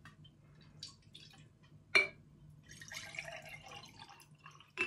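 Strained water kefir liquid poured from one glass jar into another, a thin stream splashing into the liquid for a second or two near the end. About two seconds in there is one sharp knock.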